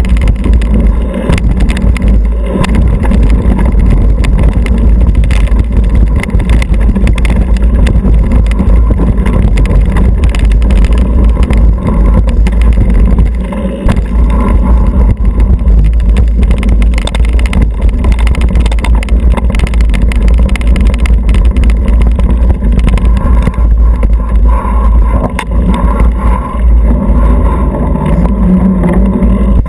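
Mountain bike riding fast over dirt singletrack, heard from a camera mounted on the bike: loud wind rumble on the microphone over the tyres rolling on the trail, with a constant clatter of small knocks and rattles from the bike over rough ground.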